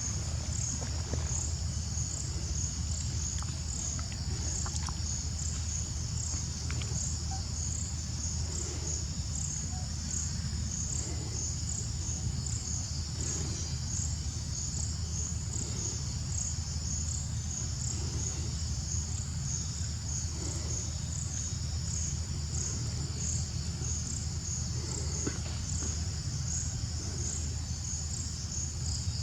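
Insects shrilling in a steady high chorus that pulses about twice a second, over a steady low hum.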